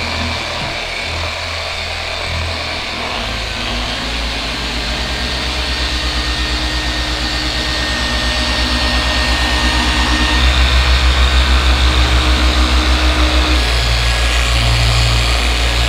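Rupes dual-action polisher running on car paint during paint correction: a steady motor hum with an even pulsing, growing a little louder as it goes, with the pitch shifting a few times.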